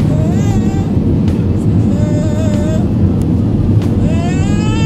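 An infant crying in high wails: a short cry, a lower one about two seconds in, then a longer rising wail near the end. Under it runs a steady low rumble, typical of an airliner cabin in flight.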